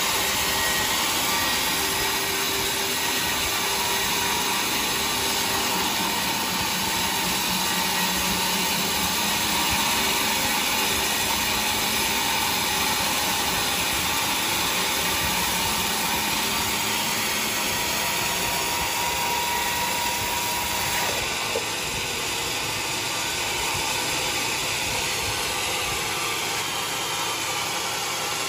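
Sawmill saw running and cutting through a mahogany log, a loud steady whine over a dense rush of noise. About 21 seconds in the tone shifts slightly and there is a small knock.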